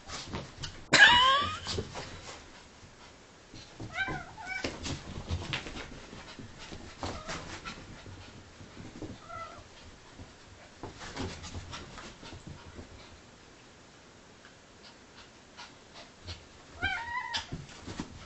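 A cat and a small dog play-fighting: scuffling and knocks, with a few short pitched animal cries. The loudest cry comes about a second in, and others come near the 4-second mark and near the end.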